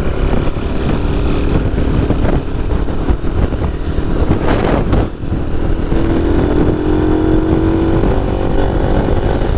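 Honda C90 moped's small single-cylinder four-stroke engine running on the move. Its note dips briefly about five seconds in, then comes back stronger and rises a little.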